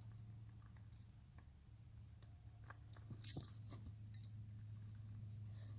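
Faint scattered clicks and light crunching over a steady low hum, the loudest clicks about three and four seconds in.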